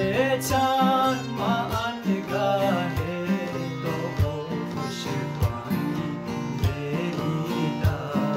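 Instrumental break in a Khowar folk song: plucked string instruments over steady bass notes and regular percussion strikes, with a wavering melody line in the first few seconds.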